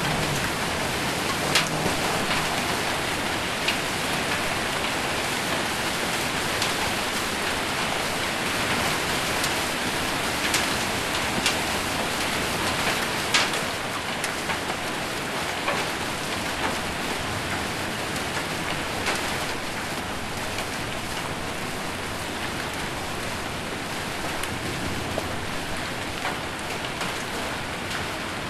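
Heavy rain mixed with hail pelting a metal roof: a dense, steady patter with a handful of sharper single hits standing out, mostly in the first half. It eases slightly partway through.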